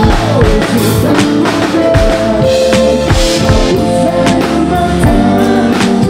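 Live pop band playing a song: drum kit with regular kick and snare hits, electric bass and guitar, and a male lead vocal sung into a handheld microphone.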